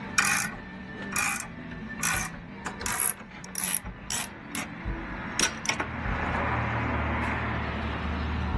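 Ratchet wrench being worked in short strokes, about a dozen clicking bursts, coming quicker toward the middle. From about six seconds in, a steady hiss with a low hum takes over.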